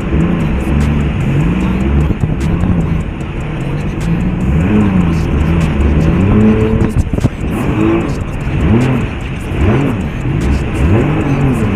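Jet ski engine revving up and down, its pitch rising and falling over and over, with quicker throttle swoops a little past the middle.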